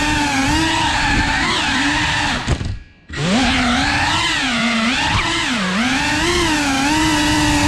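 FPV racing quadcopter's brushless motors whining, rising and falling in pitch as the throttle changes. About two and a half seconds in the throttle drops and the sound almost vanishes for half a second, then the whine climbs back up in pitch as the motors spool up again.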